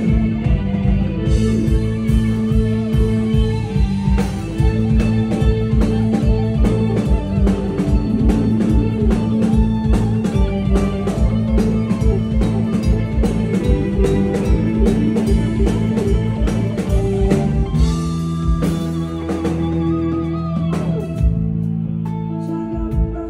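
Live band music: a Stratocaster-style electric guitar playing lead lines over a drum kit. The drums stop about eighteen seconds in, leaving held notes.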